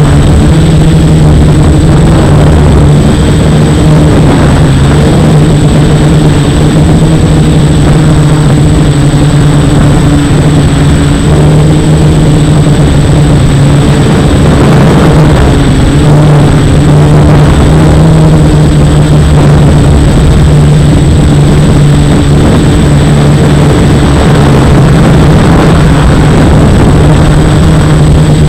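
F450 quadcopter's brushless motors and propellers buzzing steadily in flight, the pitch wavering slightly as the throttle shifts. A thin, steady high whine sits above the buzz.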